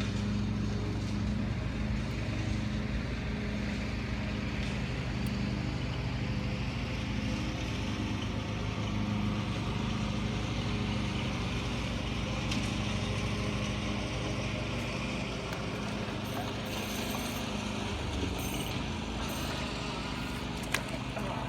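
A boat motor running steadily, a low even hum. A single sharp click near the end.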